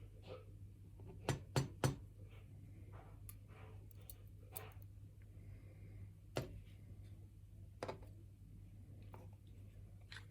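Small metal clicks and taps as pins and parts of a disassembled pin-tumbler lock are handled: three sharp clicks in quick succession about a second and a half in, then single clicks later, over a low steady hum.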